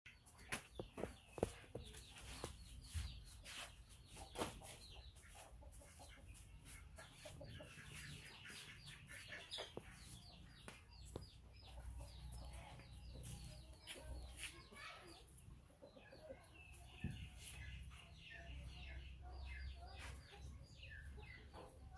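Chickens clucking, with scattered clicks and knocks that are loudest in the first few seconds.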